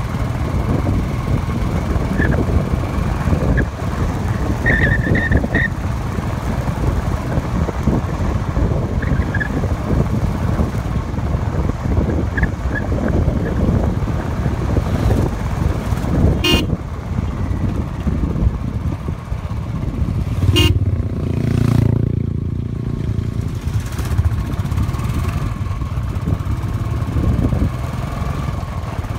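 Motorcycle on the move, its engine under heavy wind buffeting on the microphone, with a short horn toot about five seconds in and two sharp knocks in the second half.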